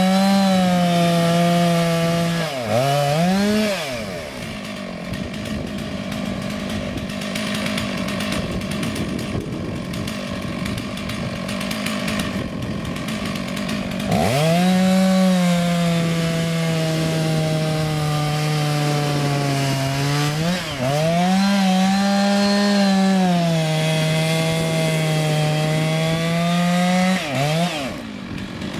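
Two-stroke chainsaw running at high revs while cutting into a dead elm tree. The engine pitch dips and climbs again several times. A quieter, rougher stretch comes a few seconds in and lasts about ten seconds, then the saw runs hard again until shortly before the end, where it drops away.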